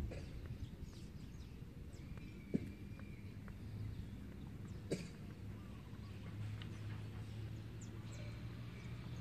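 Outdoor ambience: a low rumble of wind on the microphone, with two short knocks, one about two and a half seconds in and one about five seconds in.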